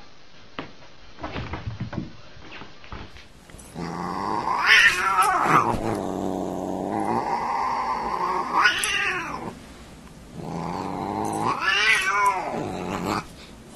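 A few light knocks, then a Siamese cat yowling and growling while play-fighting with a dog: three long yowls that waver up and down in pitch, with a steady growl between them.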